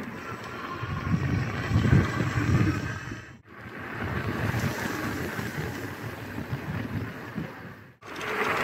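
Wind buffeting the microphone and tyre rumble from a Gunai MX25 electric enduro bike riding on tarmac, with a faint steady whine above it. The sound dips out briefly twice, about a third of the way in and near the end.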